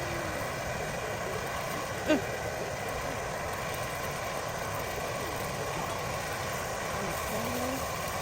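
A steady whirring hum, with one short sharp sound about two seconds in.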